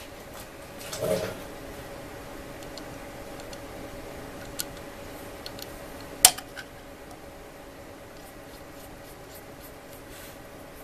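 Small metallic clicks and taps of a router bit and collet being handled and fitted into a CNC router spindle by hand: a short knock about a second in, a few light ticks, then one sharp click about six seconds in. A faint steady hum runs underneath.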